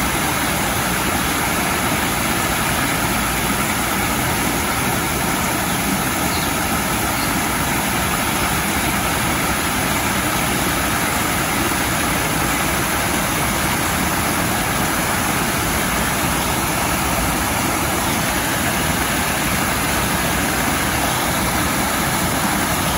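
Small garden waterfall cascading over stacked stone ledges into a pond: a steady, even rush of falling water.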